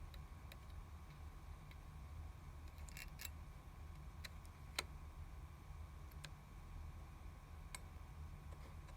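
Opened laptop hard disk drive's head making a faint, irregular 'chick chick' clicking, about eight clicks, the loudest near the middle, over a low steady hum.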